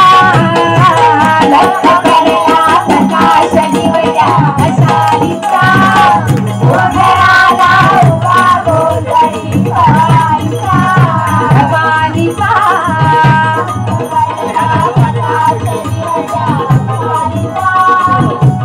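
Marathi devotional bhajan music: a woman singing a melody over regular drum beats, with a steady jingling of small hand cymbals.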